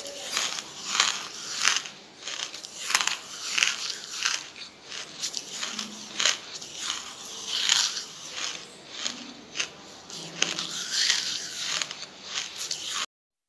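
A person biting and chewing pieces of charcoal in crisp crunches, about one to two a second, with a brief silent gap near the end.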